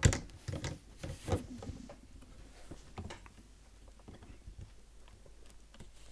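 Plastic Cobi building bricks clicking and rattling as a large brick-built section is pressed onto the model's hull. A sharp click at the very start is the loudest, a few more clicks follow over the next three seconds, then only faint handling ticks.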